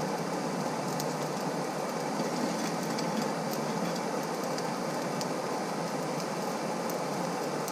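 Steady rushing of a hair-dryer blower forcing low-pressure air into a coal forge fire, with a few sharp crackles from the burning coal.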